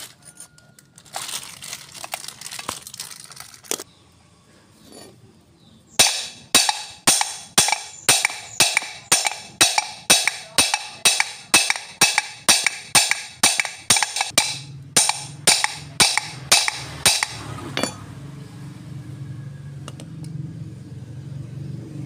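Hammer blows on the steel yoke of a propeller shaft, about two a second for some eleven seconds, knocking out the universal joint's cross and bearing cups; the worn cross joint is what made the clunk from the rear. Before the hammering, light metal clicks and scraping as the circlips are worked off.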